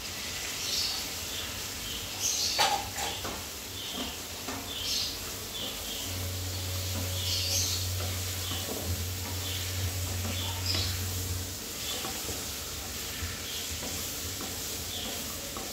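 Pumpkin cubes frying in oil and masala in a kadai, stirred with a wooden spatula: repeated short scrapes and knocks of the spatula against the pan over a light sizzle. A low hum comes in about six seconds in and stops about five seconds later.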